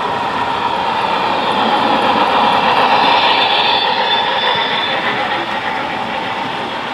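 HO scale model train running along the layout track, growing louder to a peak about three seconds in and then fading as it passes.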